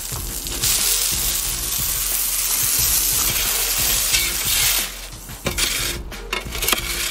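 Stream of water spraying onto loose, water-activated asphalt patch mix, a steady hiss from about half a second in until nearly five seconds, wetting the mix to activate it. Then a steel shovel scrapes and taps in the wet mix.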